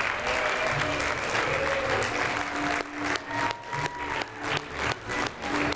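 Audience applauding, turning about halfway into rhythmic clapping at about four claps a second.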